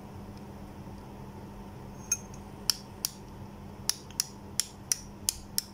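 Push-button on/off switch of a rechargeable handheld searchlight clicking as it is pressed repeatedly through a screw fitted in place of its broken plastic pusher: about nine sharp clicks, roughly two to three a second, starting about two seconds in, over a low steady hum. The switch is springing back freely, a sign that the repair works.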